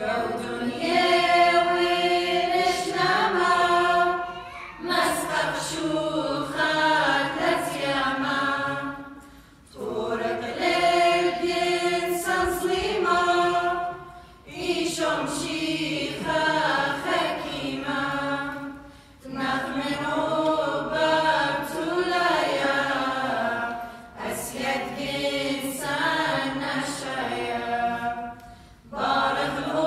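Small mixed choir singing an Assyrian Church of the East hymn unaccompanied, in phrases of about four to five seconds with a brief break between each.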